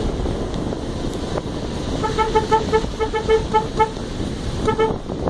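A vehicle horn tooted in a quick run of about a dozen short beeps at one pitch, then twice more near the end. Steady wind rumble and road noise from a moving vehicle run underneath.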